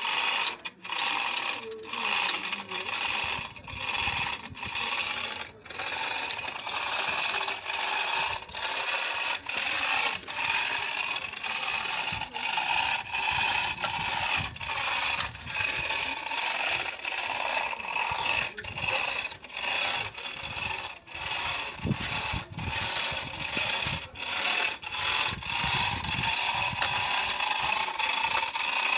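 Manual chain hoist working under the load of a Toyota 1KD diesel engine: the hand chain rattles through the hoist and the pawl ratchets in a continuous run of clicking, broken by short dips between pulls.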